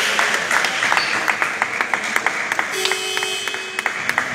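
Spectators applauding in a basketball gym, with one set of sharp claps standing out at about four to five a second.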